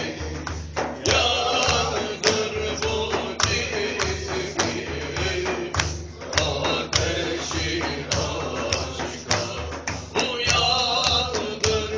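Music: a singer holding a bending melody over regular hand-drum beats, with sharp jingling strikes.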